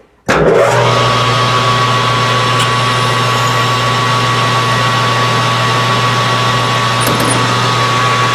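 Metal lathe switched on about a third of a second in and running at steady speed, a low motor hum with a steady high whine, while a twist drill in the tailstock chuck opens up the bore of a spinning aluminium idler-wheel blank.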